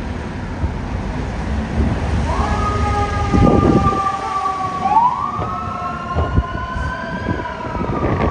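Emergency vehicle siren sounding over the low rumble of idling diesel fire apparatus. The siren comes in about two seconds in as two steady tones, which glide up together about five seconds in and slowly fall near the end. A few low thumps sound along the way.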